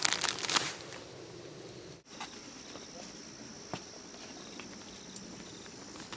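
A brief burst of crackling handling noise, then, after a cut, a steady high insect trill over quiet grassland ambience, with a few light clicks.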